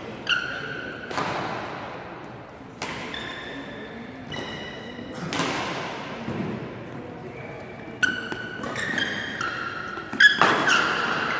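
Badminton rally: rackets strike the shuttlecock with sharp cracks, several times, the loudest near the end, while the players' shoes squeak on the synthetic court mat between the hits.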